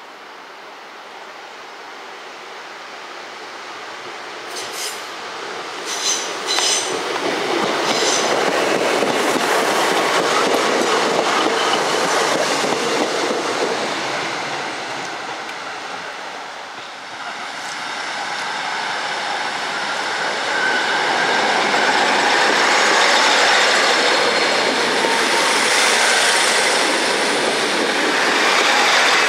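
Class 150 Sprinter diesel multiple unit passing close by on a curve, growing louder as it comes in. A few sharp clicks of the wheels over rail joints come about five to seven seconds in, then a steady running rumble. A high wheel squeal builds from the second half on.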